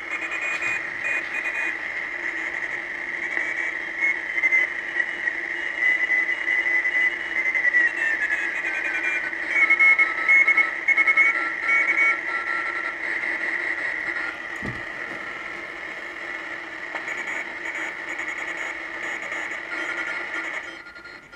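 Receiver audio from a uBitx v4 HF transceiver: a harsh hiss of band noise bunched into a narrow high band, with a steady low tone under it and whistles that slide lower around the middle. The uploader calls it bad sound from the rig.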